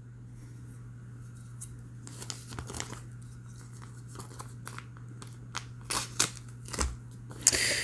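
Plastic coin bags crinkling and tearing as a knife blade slices them open, in short crackles and rips that grow louder near the end. A steady low hum runs underneath.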